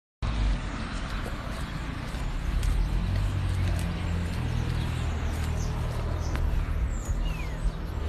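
Street ambience: a steady low rumble with a few short bird chirps over it, one a brief falling chirp near the end.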